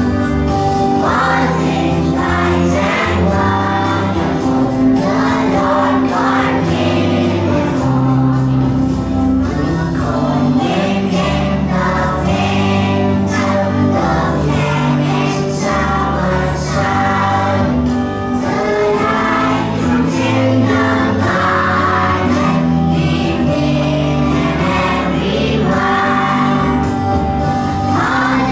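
A group of voices singing together over instrumental accompaniment with sustained bass notes, a choir-style song at a steady level.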